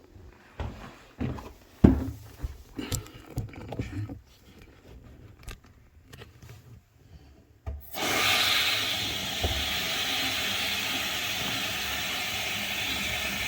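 Knocks and rubbing from hands working a stiff under-sink shut-off valve. About eight seconds in, water suddenly starts rushing steadily from the opened faucet: the valve has not shut off the supply.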